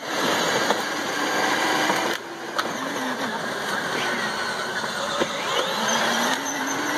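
Children's battery-powered ride-on toy cars driving over a dirt trail: a steady electric motor whine that wavers a little in pitch, over rough rolling noise from the plastic wheels, dropping in loudness about two seconds in.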